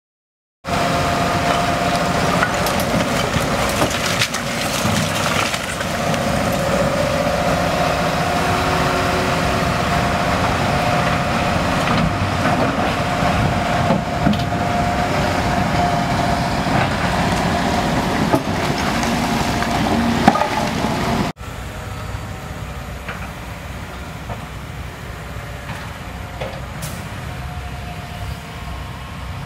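Diesel engines of heavy demolition machinery, a tracked excavator and a dump truck, running steadily, with a few short knocks. About two-thirds of the way through, the sound cuts to a quieter, steady engine drone.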